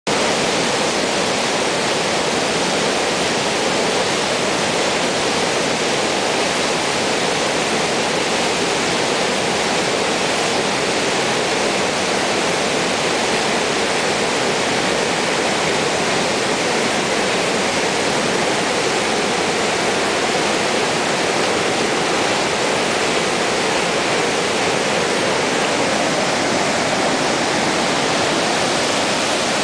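Whakapapa River in flood, its brown floodwater rushing through rocky rapids: a loud, steady, unbroken rush of turbulent water.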